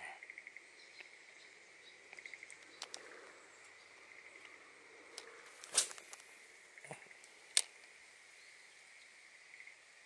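High chirping in short pulsed trills, likely from insects, over faint outdoor ambience. About six seconds in comes a brief loud swish, and about a second and a half later a single sharp click: a spinning rod being cast and the reel's bail snapping shut.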